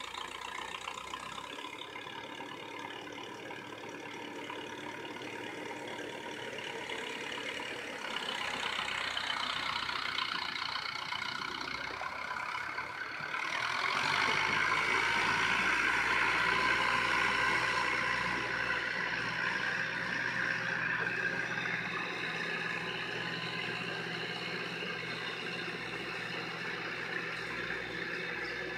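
Massey Ferguson 165 tractor's engine running steadily while pulling a boom sprayer, heard across the field, growing louder about halfway through.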